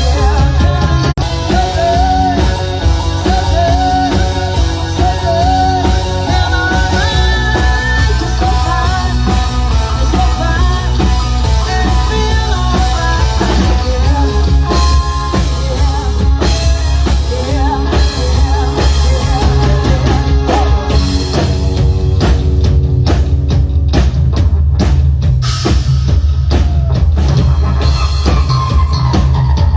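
Rock music played on a drum kit with a heavy bass line and a singing voice.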